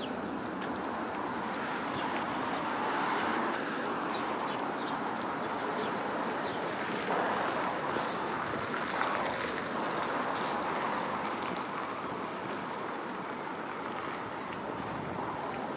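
Outdoor city street ambience: a steady wash of traffic noise that swells a little about three seconds in and again around seven to ten seconds in, with faint light ticks over it.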